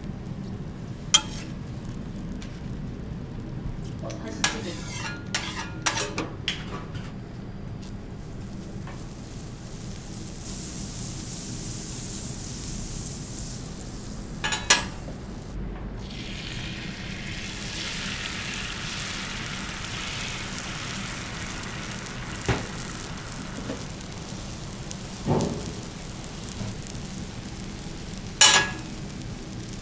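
Food sizzling on a hot griddle, the sizzle swelling twice in the middle. Sharp clacks and knocks of cooking utensils come throughout, with a quick cluster about five seconds in.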